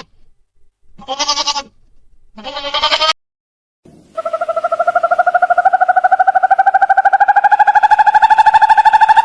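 Two short bleats from a goat or sheep, then, after a cut and a second of silence, a different long call that pulses rapidly and rises slowly in pitch for about six seconds.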